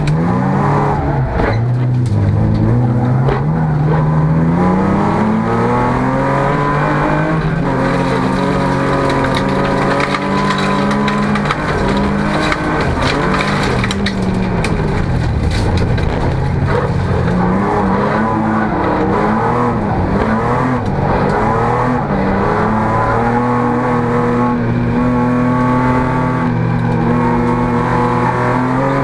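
Folk-race car's engine heard from inside the cockpit, revving hard and climbing in pitch, dropping back at each gear change, again and again through the lap. Scattered short knocks from the gravel track and the bodywork come through over it.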